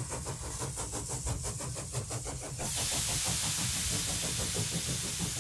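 Steam engine sound: a fast, even chuff of about six beats a second for the first two and a half seconds, then a steady hiss of steam, over a low rumble throughout.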